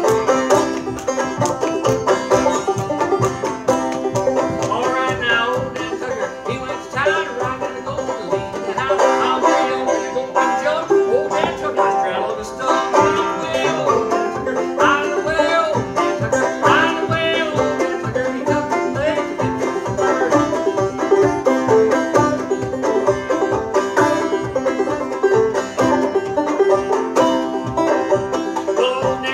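Solo banjo played on stage: a steady, rhythmic stream of picked notes.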